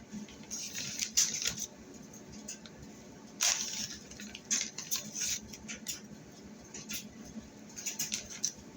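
Light kitchen handling noises: scattered soft clicks and rustles in several short clusters.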